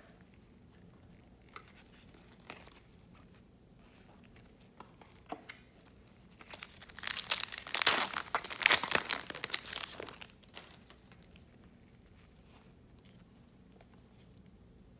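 Foil wrapper of a Topps Chrome trading-card pack crinkling and tearing as it is ripped open: a dense burst of crackling lasting about four seconds, starting about six seconds in. A few light clicks from handling cards come before it.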